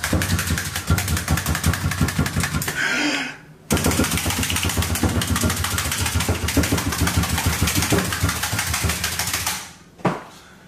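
Handheld multi-blade meat tenderizer pumped rapidly into a raw steak on a wooden cutting board: a fast, even run of strokes. It pauses briefly a little over three seconds in, then goes on until it stops near the end.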